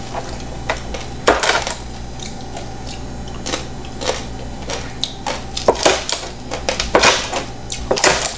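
Kitchen knife cutting crispy-skinned roast pig's head (lechon) on a plastic cutting board: irregular crunches and knocks of the blade striking the board, with a few longer cutting strokes.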